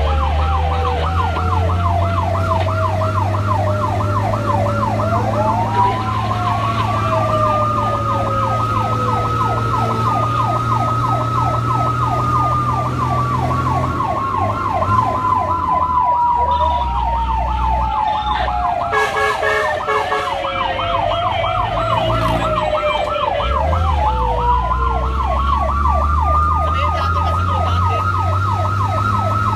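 Fire truck sirens in use while responding to a fire alarm: a fast yelp siren sweeping up and down several times a second, together with a slower wail that climbs quickly and then sinks gradually, twice. The vehicle's engine drones low underneath.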